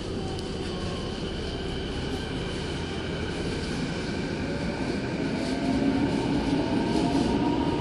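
Kobe Municipal Subway 1000-series train's IGBT-VVVF inverter and traction motors whining as the train accelerates. Several tones climb steadily in pitch, and the sound gets louder about six seconds in.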